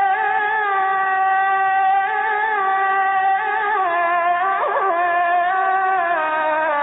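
A muezzin chanting the adhan, the Islamic call to prayer: one voice holding long drawn-out notes, with a quick wavering ornament about two-thirds through and the pitch stepping down near the end.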